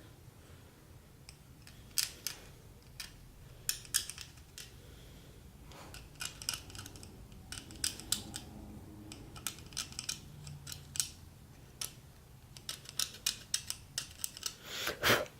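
Carbide scraper scraping paint off a painted plastic statue peg in short, irregular strokes, with a longer, louder stroke near the end. The paint is being taken off because it makes the peg too thick for the hole in its base.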